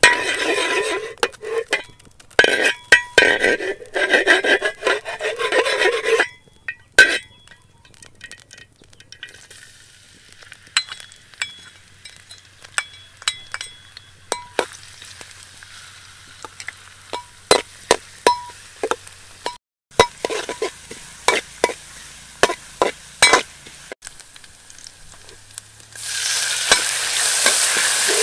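A metal spatula scrapes and stirs in a steel wok of hot oil, the pan ringing with each stroke for the first few seconds. Then come scattered light taps and clicks. Near the end a loud, steady sizzle starts as chopped garlic and red chilli fry in the oil under the spatula.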